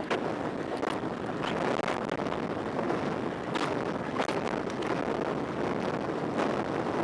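Steady rush of wind over the microphone of a sunglasses camera on a bike descending fast on pavement. A few short clicks cut through it now and then.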